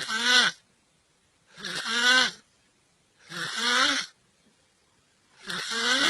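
Snoring: four rasping snores about two seconds apart, each with a pitch that bends up and down, and silence between them.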